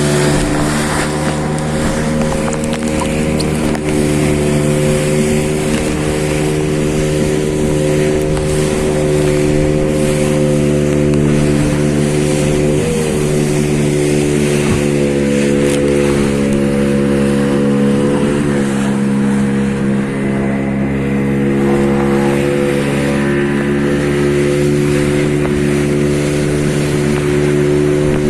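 A small engine running steadily at constant speed, with brief dips in pitch about 13 and 18 seconds in.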